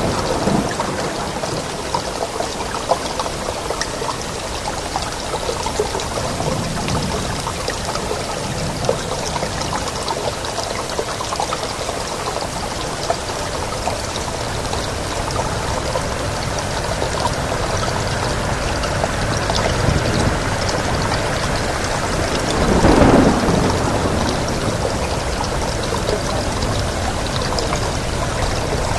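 Steady heavy rain falling, an even rushing hiss with scattered drop patter. About three-quarters of the way through, a louder, deeper swell rises and falls back over a second or two.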